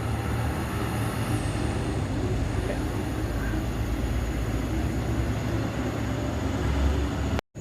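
Road traffic: a motor vehicle's engine running with tyre and road noise, a steady low rumble that cuts off abruptly near the end.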